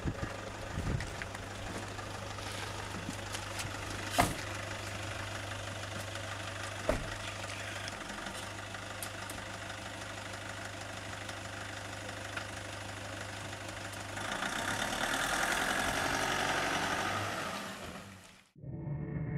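Toyota Hilux pickup's engine idling, with two sharp knocks about four and seven seconds in. About fourteen seconds in the engine revs up as the truck pulls forward to drag a bush root out on a rope, then the sound fades and cuts off near the end.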